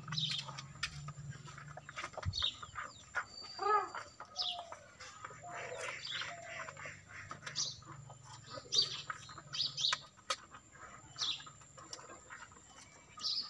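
Small birds chirping in short, high calls every second or so, with a hen clucking a few times in the middle.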